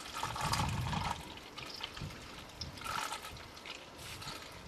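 Engine oil draining from a diesel Nissan Y60 Safari's oil pan through a one-touch drain valve and hose, trickling and gurgling unevenly into a container, with louder swells about half a second in and again near three seconds.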